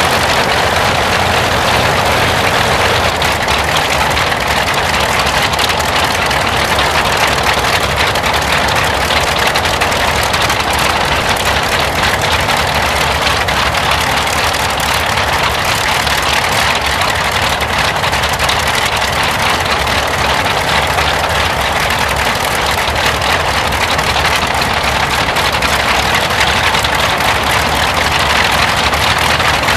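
The Bristol Freighter's two Bristol Hercules 14-cylinder sleeve-valve radial engines running steadily at low taxi power as the aircraft taxis.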